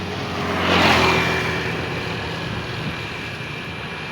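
A vehicle passes close by, its rushing sound swelling about a second in and then fading, over a steady low engine drone.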